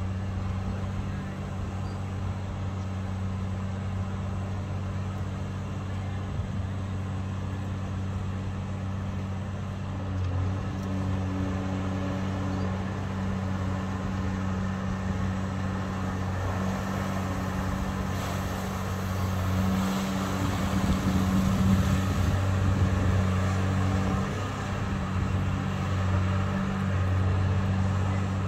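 Diesel engine and hydraulics of a long-reach excavator dredging from a pontoon: a steady low hum that grows louder and rougher about two-thirds of the way through as the arm lifts the bucket of silt out of the water.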